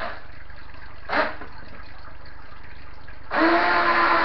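Small electric motor of a toy RC racing boat, running on an upgraded 2S lithium battery pack: two short bursts of throttle, then about three seconds in a longer full-throttle run with a steady whine and the propeller churning water.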